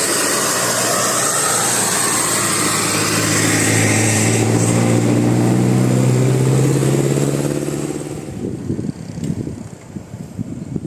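A bus passes close by with a loud rush of tyre and wind noise, then its engine note rises slightly as it accelerates away and fades out after about eight seconds.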